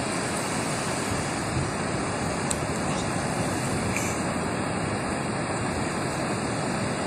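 Ocean surf washing onto a sandy beach, a steady rush.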